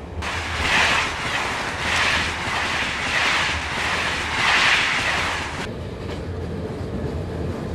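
Passenger train running at speed: a loud rushing noise swells and eases four or five times, then drops suddenly about five and a half seconds in to the lower, steady rumble heard inside the carriage.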